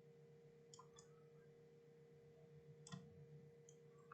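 Near silence: a low steady hum with a few faint clicks, the loudest about three seconds in.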